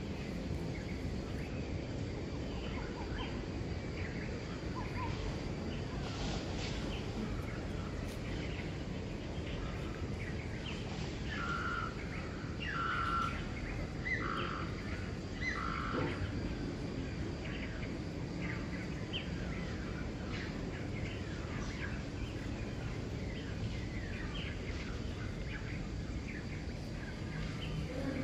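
Outdoor ambience of birds chirping over a steady low rumble. About halfway through come four louder short calls, about a second apart.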